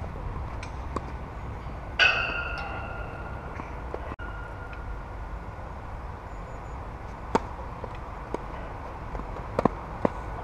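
Tennis ball struck by rackets on a clay court: a serve at the start and a few sharp hits later in the rally, over a steady low rumble. About two seconds in, a loud ringing squeal fades out over a second or so.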